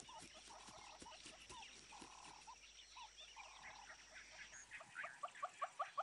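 Faint wild-animal ambience: soft calls repeat about every second and a half. Near the end a quicker, louder run of short rising chirps sets in, about four a second.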